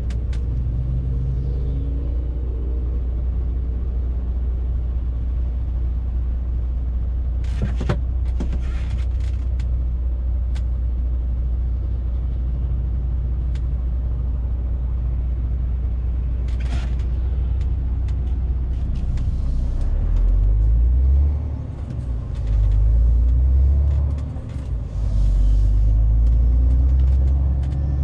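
MAN TGX 470 truck's six-cylinder diesel engine and road noise heard from the cab while driving, a steady low drone. There are a couple of short hisses partway through, and near the end the low drone swells and drops away a few times.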